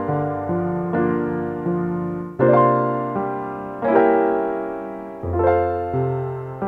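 Background music: slow piano notes and chords, a new one struck every second or so, each ringing and fading away.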